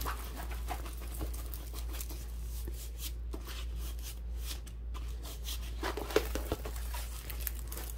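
A plastic-covered diamond-painting canvas crinkling and crackling as it is rolled up backwards by hand to take out its curl, then unrolled, over a low steady hum.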